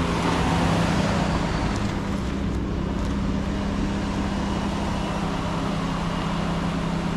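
Ford F-150 pickup truck driving slowly across a dirt yard: a steady low engine hum under an even rushing noise.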